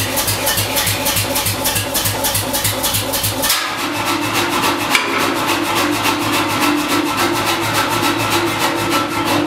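1958 Bernsdorf 70 kg (1.5 hundredweight) air power hammer running, its ram knocking in an even rhythm of about four beats a second. About a third of the way in the knocking stops and the machine runs on with a steady hum.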